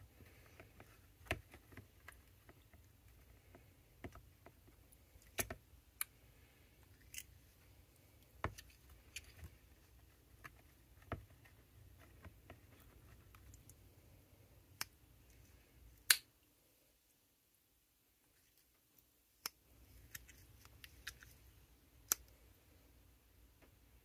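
Irregular clicks and snaps of a vintage Victorinox Camper Swiss Army knife's saw and other tools being worked open and shut in a tub of soapy water, the backsprings snapping as the pivots are freed of old oil and grime. The loudest snap comes about two-thirds through, followed by a few seconds of dead quiet.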